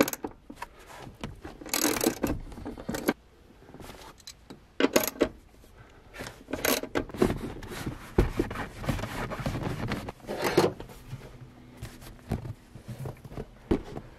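Irregular metallic clinks and jangles, with rubbing and scraping, as a car's rear seat bottom is unbolted and its cushion pulled free and lifted out.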